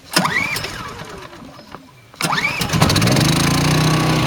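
Champion inverter generator being pull-started cold with the choke on. A pull on the recoil starter rope fails to catch. A second pull about two seconds in catches, and the engine settles into a steady run.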